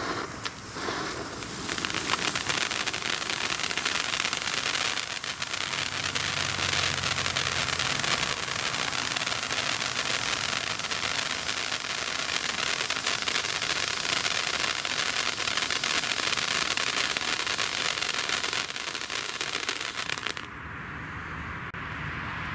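Two Jorge JF02 category F1 firework fountains, one blue and one red, burning side by side with a steady, loud hiss of spraying sparks. The hiss builds in the first couple of seconds and stops abruptly about twenty seconds in as the fountains burn out.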